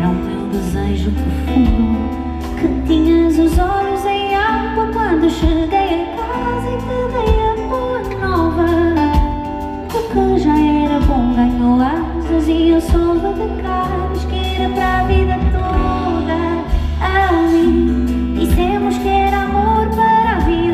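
A woman singing a Portuguese-language pop ballad live, backed by a band with drums, guitar and low strings, recorded from the audience.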